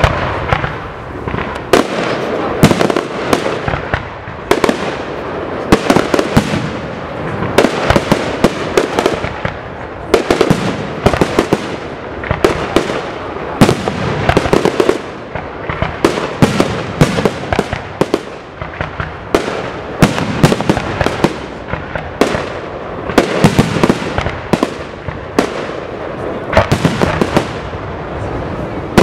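Aerial firework shells fired from mortars, bursting in a rapid, unbroken barrage: sharp bangs several times a second over continuous crackling.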